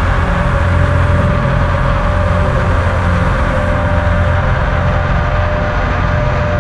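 Dualtron Thunder electric scooter riding steadily at speed: low rumbling wind and road noise from the wheel-level mount, with a steady whine from the hub motor.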